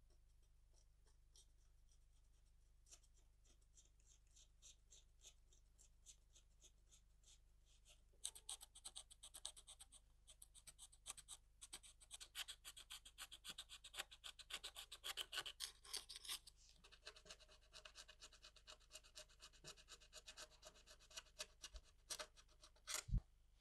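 Knife blade scraping crusted residue off an old lantern glass: rapid scratching strokes, faint at first and much louder from about eight seconds in, with a sharp click near the end.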